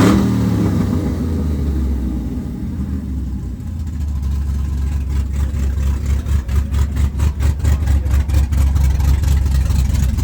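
Cammed LS V8 in a Chevy C10 pickup coming down off a rev right at the start, then settling into a lumpy idle that is "gasping for air" from the big cam. The rhythmic chop of the idle grows more pronounced about halfway through.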